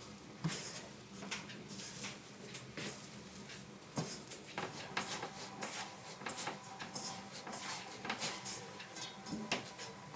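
Food-preparation handling noises: an irregular scatter of small clicks, taps and knocks, with a sharper knock about four seconds in.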